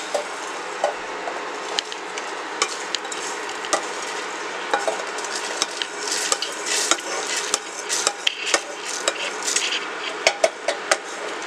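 A wooden spatula scraping and tapping against a non-stick pan as dry-roasted whole spices (dried red chillies, coriander seeds, cardamom, cinnamon) are tipped into a steel mixer-grinder jar, the seeds pattering into the jar. A run of irregular clicks and scrapes, busier in the second half.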